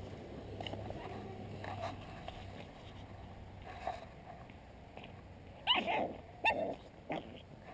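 Pug puppy barking three times in quick succession near the end, after a couple of fainter sounds earlier.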